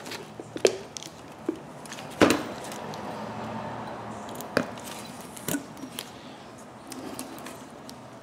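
Rubber CV boot being worked by hand over the CV joint's outer housing, giving several sharp clicks and knocks as it snaps into and seats in its groove; the loudest comes about two seconds in.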